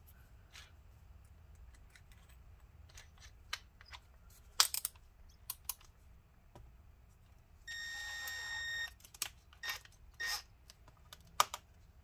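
Scattered sharp clicks and taps of tools working on a laptop's keyboard plate, with a small electric motor whirring steadily for about a second about two-thirds of the way through.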